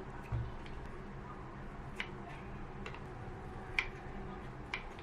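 A few light, sharp clicks, spaced roughly a second apart, with a soft low thump near the start.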